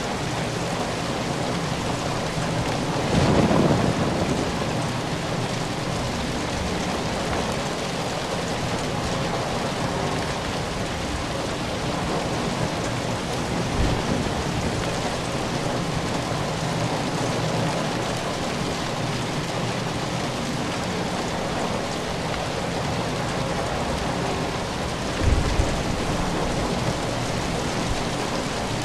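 Steady rain falling, a constant even hiss, with a louder low rumble about three seconds in and a short low thump near the end.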